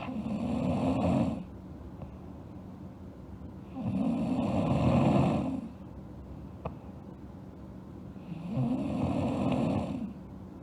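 A sleeping girl snoring: three long snores about four seconds apart, each swelling in loudness before it breaks off.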